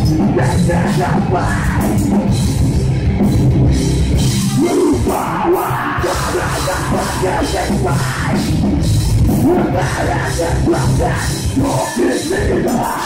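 Live heavy metal band playing loud through a PA: distorted electric guitars, bass guitar and drum kit, with harsh vocals into the microphone.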